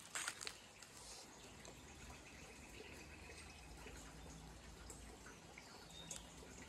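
Faint trickling, dripping water, with a couple of crunching footsteps at the very start.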